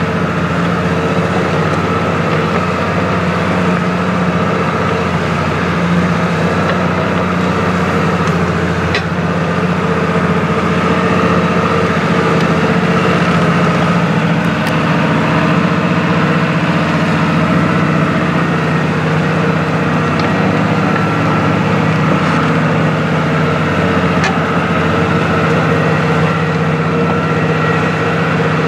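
New Holland M 135 tractor's diesel engine running steadily under load while pulling a mounted plough through wet, muddy ground.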